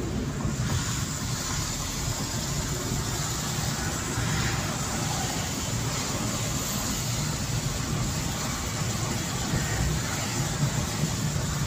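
Steady road noise inside a moving car on a wet road: a low rumble of engine and tyres with an even hiss of tyres on the wet surface.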